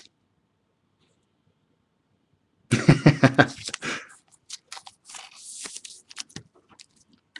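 A man coughs in a short rough burst about three seconds in, followed by soft rustling and clicks of trading cards being handled.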